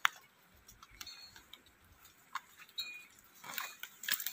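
Scattered sharp clicks and snaps of twigs and branches as someone climbs through a tree. The loudest snap comes right at the start, and the clicks crowd together near the end.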